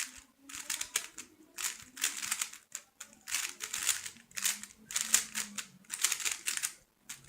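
A 3x3 speed cube being turned at full speed during a timed solve: fast runs of plastic clicking and clacking in bursts of about a second, with brief pauses between them for looking ahead.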